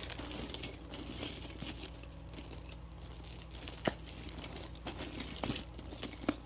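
Costume jewelry jangling and clinking: metal earrings and trinkets rattling together as they are rummaged through by hand, with a few sharper clicks of pieces knocking against each other.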